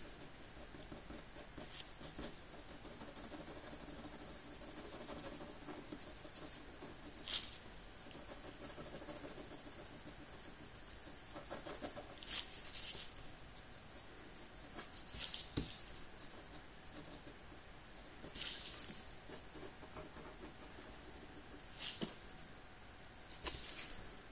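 Ink pen scratching across paper in short strokes, one every few seconds.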